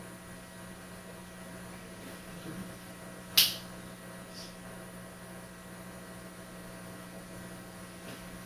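A single sharp finger snap about three seconds in, the hypnotist's trigger to send the subject back into hypnosis, over a steady electrical hum.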